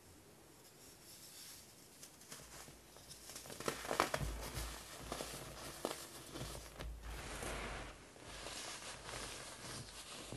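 Purple-dyed pressed baking soda crushed by hand, with sharp crunches about four seconds in. The powder then crumbles and sifts through the fingers onto a mound with a steady dry hiss.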